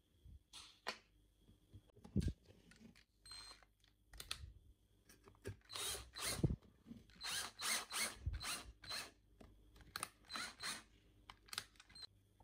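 Cordless drill-driver driving a long screw into a PVC pipe in a series of short bursts, several a second, mostly in the second half. There are a few handling clicks before it starts.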